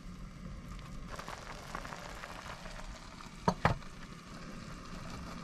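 Food cooking on a stove with a steady hiss, and two sharp clicks close together about three and a half seconds in.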